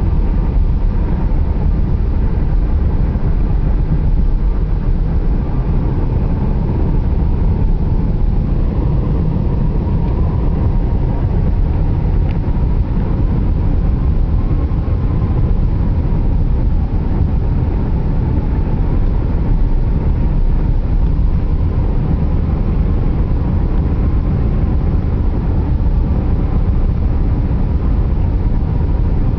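Steady road and tyre noise of a car driving at highway speed, with a faint whine that wavers slightly in pitch.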